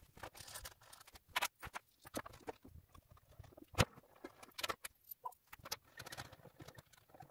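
Faint, scattered clicks and knocks as a benchtop woodturning lathe is handled on its wooden bench, with one louder knock about four seconds in.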